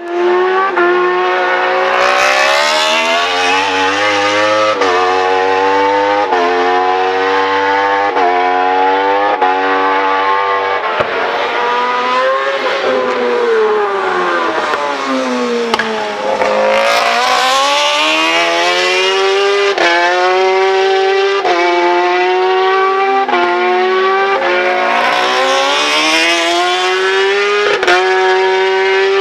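World Superbike racing motorcycles running at full race pace, several engines overlapping. Their pitch climbs and drops back sharply with each quick upshift, then glides down as bikes brake or sweep past.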